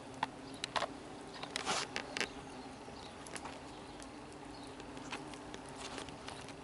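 Asian hornets buzzing around their freshly disturbed nest in a pile of dry garden waste, a steady low hum, with scattered dry crackles and ticks among the leaves and twigs.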